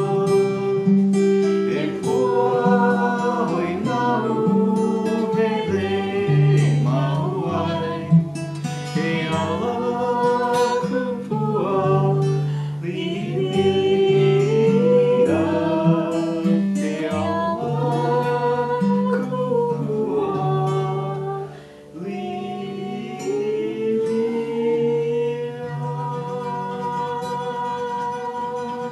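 Acoustic guitar strummed and picked, accompanying a man singing a slow song.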